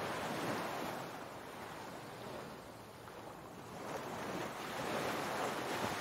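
Ocean waves washing onto a shore, one surge easing off and a second building about four seconds in.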